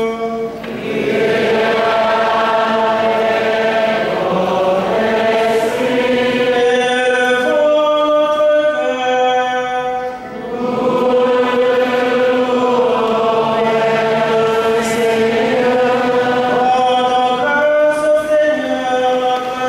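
Church choir singing a slow hymn in long held notes, with brief pauses between phrases.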